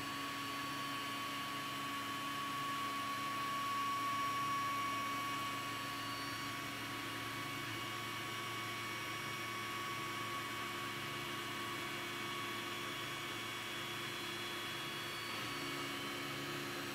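Steady electrical hum with a thin high tone over a faint hiss, unchanging throughout.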